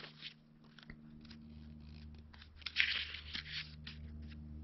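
Paper pages of an instruction booklet rustling and crinkling as they are handled and turned: scattered small crackles, with a louder rustle about three seconds in.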